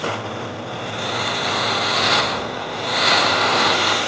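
Oxygen jetting from a copper tube onto a burning plastic bottle cap: a steady rushing hiss that swells and eases, loudest about three seconds in.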